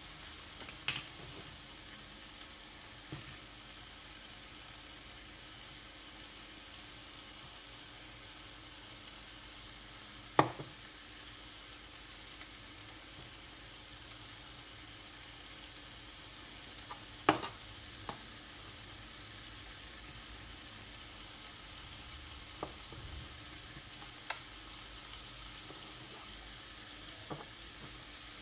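Chicken pieces sizzling in a frying pan over a gas burner, a steady hiss, with a few sharp clicks, the loudest about ten seconds in and again past the middle.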